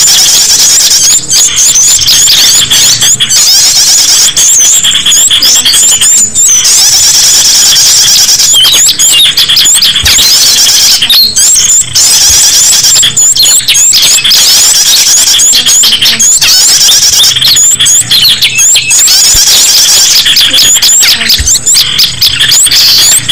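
A dense, loud chorus of small songbirds, many short chirps and whistled notes overlapping without a break: a bird-lure recording that mixes the calls of several small bird species to draw wild birds in.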